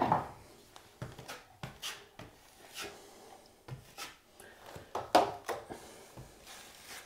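Steel drywall taping knife scraping setting-type joint compound from a mud pan and spreading it onto drywall in short strokes, with light scrapes and taps and a louder cluster of scrapes about five seconds in.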